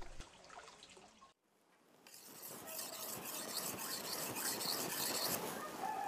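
Brief silence, then a steady scraping sound starts about two seconds in and carries on.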